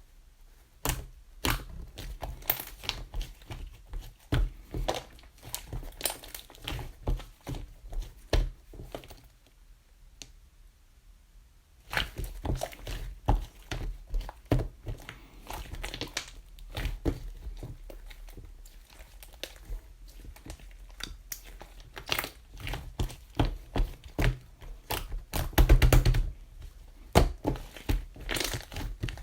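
Hands handling things: crinkling and rustling with many taps and knocks. There is a quieter lull of a few seconds about a third of the way in, and the loudest knocks come near the end.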